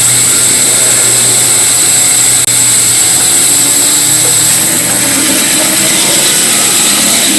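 A power tool running steadily at high level. Its low hum drops away about three seconds in, and a higher steady tone runs on.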